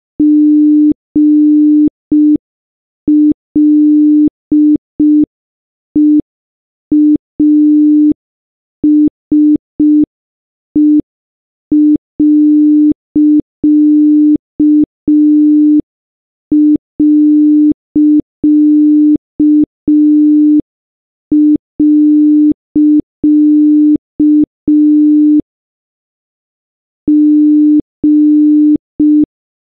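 A single steady electronic beep tone at one pitch, keyed on and off in short and long beeps with longer pauses between groups: Morse code.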